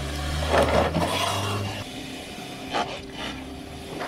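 Subaru Forester XT crawling over plastic traction boards and rock: the engine pulls low for about the first two seconds while the tyres scrape and grind over the boards and rock. A single sharp knock sounds about three seconds in.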